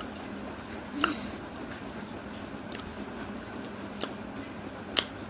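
Quiet eating sounds from chewing and biting mango: a few soft, sharp mouth clicks over low room noise, the sharpest near the end.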